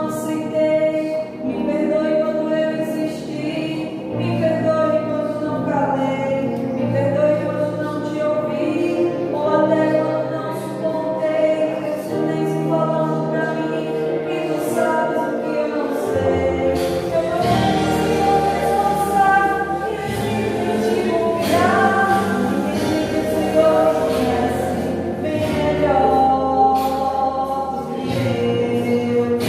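A choir singing a gospel hymn with instrumental accompaniment. About halfway through, a deep bass and a fuller band sound join in under the voices.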